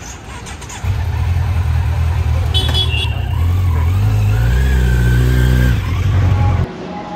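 Motorcycle engine starting about a second in and running, its pitch rising around the middle as it is revved, then dropping back. The sound cuts off suddenly near the end.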